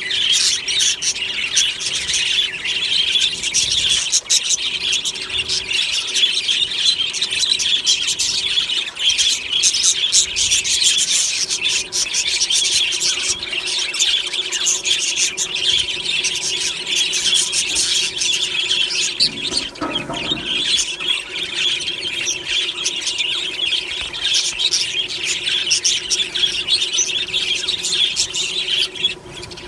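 A flock of budgerigars chattering, chirping and warbling continuously, many birds at once in a dense high-pitched din.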